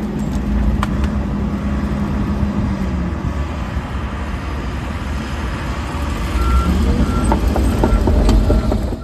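Diesel engine of heavy earthmoving equipment running steadily, with its hum settling about three seconds in and picking up again near the end. A few short high beeps sound over it in the last few seconds.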